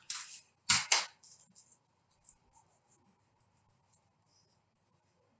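Kitchen knife scraping the brown membrane off a skinned trout fillet on a plastic chopping board: a couple of short scrapes and a sharp knock of the blade on the board just under a second in, then faint light scratches.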